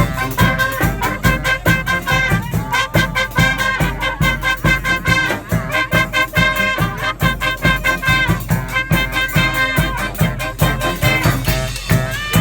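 Live marching band playing an up-tempo tune: horns carry held and moving lines over a steady, regular drum beat.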